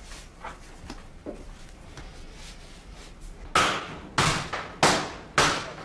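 A lump of Parian clay paste being beaten with oak beaters to drive out air bubbles: four heavy, evenly spaced thuds about two-thirds of a second apart, starting a little past halfway. Before them there are only faint soft handling sounds of the clay.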